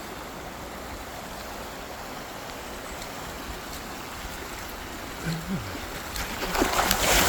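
Steady rush of a waterfall's running water, growing louder near the end.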